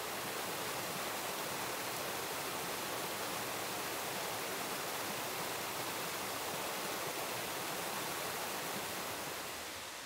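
Rushing water of the Oirase mountain stream, a steady hiss that swells up at the start and eases off near the end.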